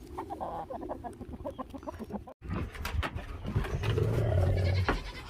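Chickens clucking in short, quick calls, broken by a brief gap about two seconds in, with a louder low steady hum for about a second near the end.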